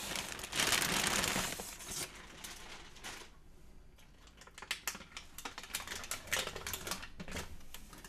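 Thin plastic bag crinkling as it is pulled off, loudest in the first two seconds, then dying away. From about halfway, a run of irregular light clicks and taps from handling the printer's door and packing.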